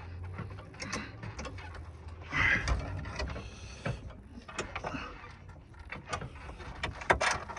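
Metal equipment being handled, with scattered mechanical clicks and knocks and a louder scraping rattle about two and a half seconds in.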